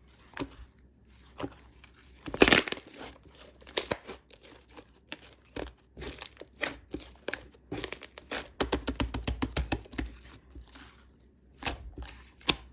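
White slime being pressed, stretched and squished by hand, giving irregular crackles, clicks and small pops. One longer, louder tearing crackle comes about two and a half seconds in.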